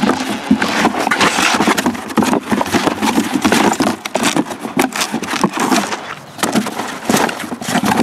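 Cardboard shipping boxes handled up close: dense, rapid rustling, scraping and knocking of cardboard, with a short lull a little after six seconds in.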